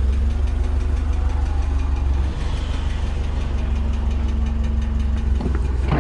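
Mitsubishi forklift's engine running at low revs with a steady low rumble and hum as the forklift drives slowly with a load on its forks, with a couple of light knocks near the end.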